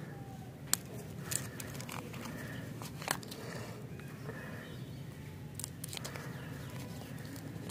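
Paper wrapper being peeled off a stick lollipop by hand: soft rustling and crinkling, broken by a few sharp clicks and snaps, about a second in, around three seconds in, and again near six seconds.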